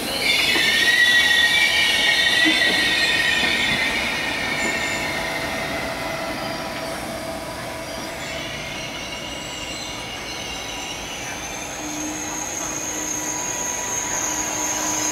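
Wheels of a departing Intercity train hauled by a DB Class 101 electric locomotive squealing on the rails as it pulls out, over a steady rolling rumble. The squeal is loudest in the first few seconds, fades, and returns higher-pitched near the end.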